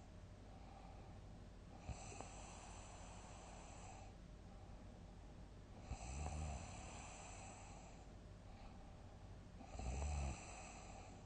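A sleeping person snoring, with a breath about every four seconds: a short low snore about six seconds in and a louder one near the end, with breathy hiss between.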